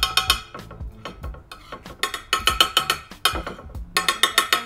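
Metal spoon clinking and scraping against a bowl and a ceramic tile while spreading mustard, in four quick bursts of ringing knocks. Background music runs underneath.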